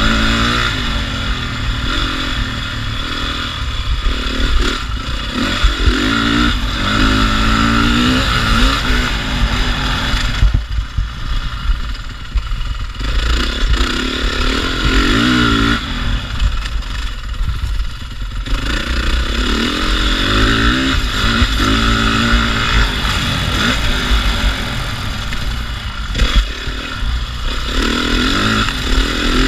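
Motocross dirt bike engine revving hard and changing gears, its pitch climbing and falling over and over, easing off twice in the middle where the throttle is rolled off.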